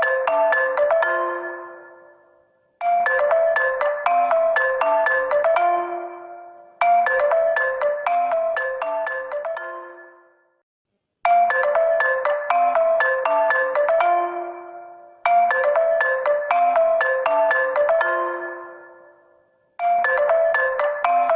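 HONOR phone ringtone: a short marimba-like melody of quick notes that rings out and fades, then starts again after a brief silence, repeating about every four seconds.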